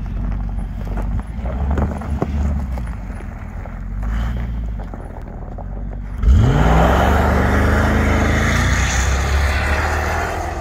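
Hummer H2's V8 engine rumbling at low speed, then about six seconds in revving up sharply and holding high revs as the truck accelerates away through deep snow, with a rushing hiss of tyres throwing snow.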